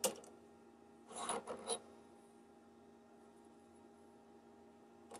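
Chuck key working a mini lathe's three-jaw chuck: a click, then two short metal-on-metal scrapes a little over a second in as the chuck is loosened to free the steel bar. A faint steady hum lies under the rest.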